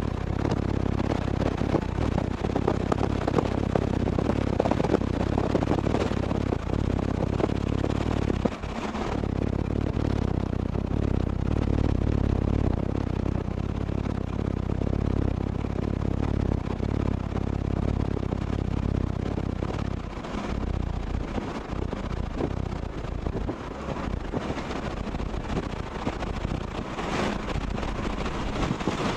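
Steady road and wind noise heard inside a moving car's cabin: a dense rush with a strong low rumble that dips sharply for a moment about eight seconds in.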